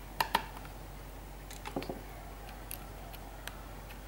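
Small clicks and taps of a small screwdriver and plastic parts on the underside of an Asus Eee PC netbook's case as it is put back together: two sharp clicks close together near the start, a few softer clicks a little before two seconds in, then faint scattered ticks.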